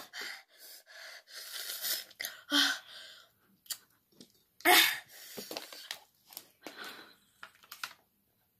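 A boy gasping and wheezing through his mouth in irregular bursts, reacting to the burn of an extremely spicy chicken wing; the loudest gasp comes about halfway through.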